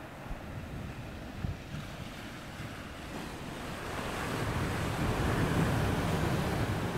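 Sea waves washing onto the shore, with wind buffeting the microphone; the surf grows louder about four seconds in.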